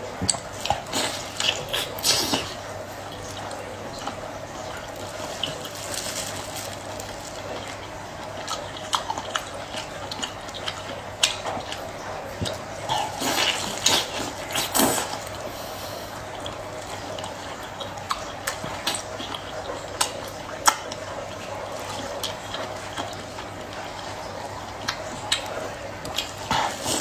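Water splashing and dripping, with many scattered sharp clicks and knocks; the busiest bursts come about two seconds in, around the middle, and near the end.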